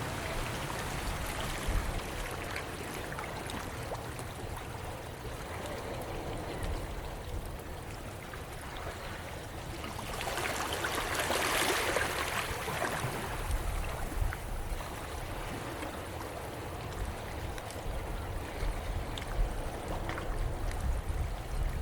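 Steady rushing noise, swelling for a couple of seconds about halfway through, with a few faint ticks.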